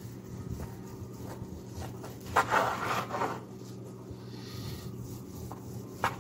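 Carving knife sawing back and forth through a crusted roast beef, a rasping scrape that is loudest for about a second in the middle. A low steady hum sits underneath.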